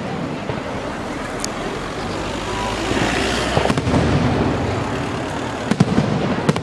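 Fireworks display: sharp bangs of shells bursting, about four over the few seconds, with a hissing crackle swelling in the middle, over a steady noisy background.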